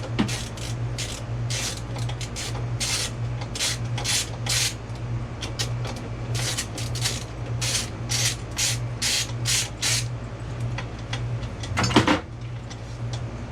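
Socket ratchet being worked on the air compressor's bolts: a run of short rasping ratchet strokes, about two a second, over a steady low hum, with a sharp knock near the end.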